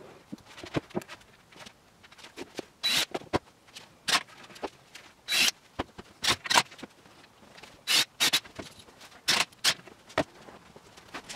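Cordless driver run in about nine short bursts with a high whine, driving screws to join plywood cabinet panels.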